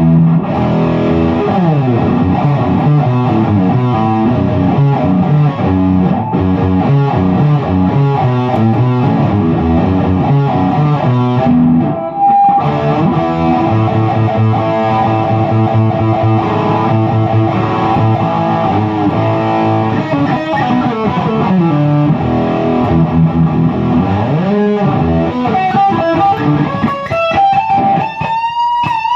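Distorted electric guitar played through a Zoom G1X Four multi-effects pedal and a Peavey 6505+ combo amp, a continuous run of notes with the pitch sliding up and down. It breaks off briefly about twelve seconds in and ends on high bent notes with vibrato.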